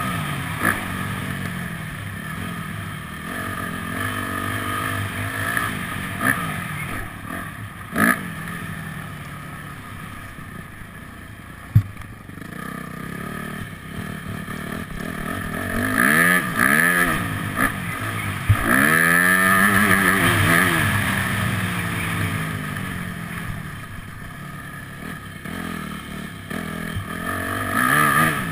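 Yamaha motocross bike's engine revving hard and falling back again and again as it is ridden around a dirt track, its pitch climbing and dropping with each burst of throttle. A single sharp knock comes near the middle.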